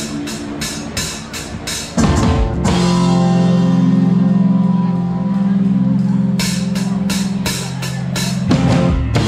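Live band with drum kit and electric guitars starting a song: sharp, even hits about four a second, then about two seconds in the whole band comes in loud on a long held low chord, with a fresh run of drum hits near the end.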